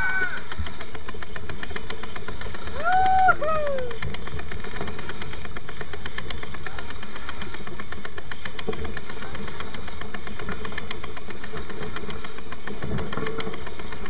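Fast steady rattle and tyre noise from a camera mounted by a mountain bike's front wheel as it rolls over a dirt road. About three seconds in, a rider gives one short shout.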